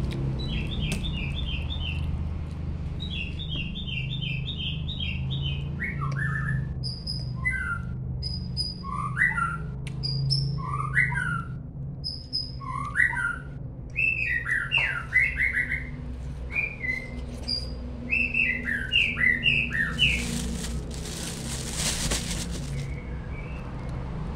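Songbirds chirping and calling: quick runs of short high chirps and repeated falling call notes, over a steady low hum. A brief noisy rush of about two seconds comes near the end.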